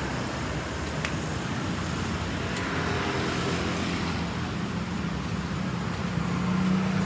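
Street traffic noise with a vehicle engine humming steadily, the hum growing louder near the end. A single sharp click comes about a second in.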